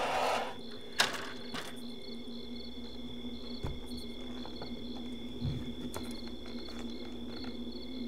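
Crickets chirping in a steady, pulsing rhythm over a low steady hum, with a sharp click about a second in.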